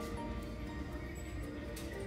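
Background music with held notes that change pitch every half second or so, over a low rumble.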